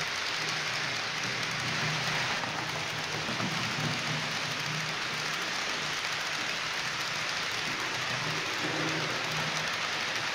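H0-scale model freight train of tank wagons rolling over the layout's track: a steady rattling rush of small wheels on rails, with a low hum that comes and goes.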